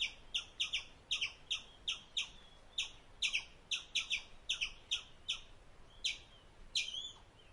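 Indian palm squirrel giving a long run of sharp, high chirps, about three a second, each dropping slightly in pitch, with a brief wavering call near the end.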